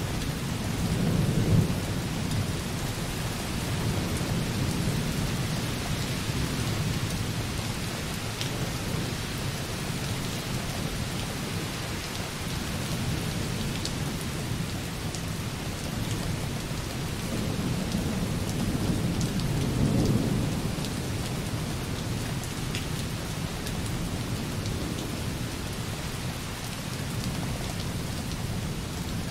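Light, steady rain with raindrops softly hitting a window glass. A low roll of distant thunder comes about a second in, and a longer one builds and fades around twenty seconds in.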